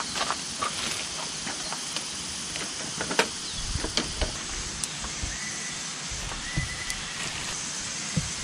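Scattered knocks, taps and rustles of a bowl, bags and food being set down and handled on a folding camp table, the sharpest knock about three seconds in, over a steady hiss.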